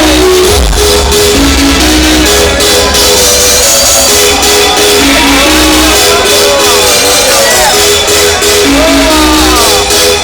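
Electronic dance music played loud over a festival sound system during a live DJ set: a heavy bass pulse under a short repeating synth melody. Crowd voices shout along over it.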